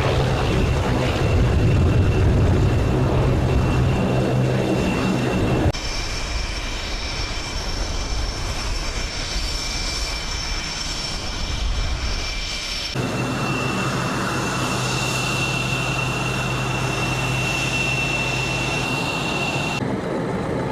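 Jet engines of US Navy F/A-18 fighters running with a steady high whine over a loud rush. The sound changes abruptly twice, about six and thirteen seconds in, as one clip cuts to the next.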